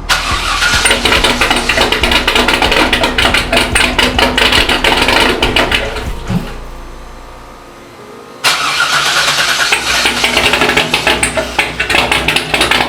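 LS1 V8 in a C5 Corvette, fitted with a BTR Stage 3 cam and catless long-tube headers, running on first start-up with a choppy, uneven beat. The sound dies away about six seconds in and comes back suddenly near the two-thirds mark.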